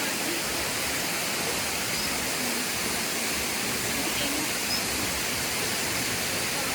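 Waterfall pouring down onto rocks: a steady, unbroken rush of water.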